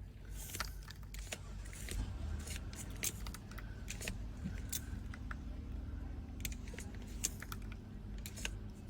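Irregular small clicks and taps from objects being handled, over a steady low mechanical hum.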